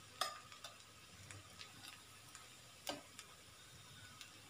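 A few light clicks of a kitchen utensil against cookware, two of them sharp, about two and a half seconds apart, with fainter ticks between, over a quiet background.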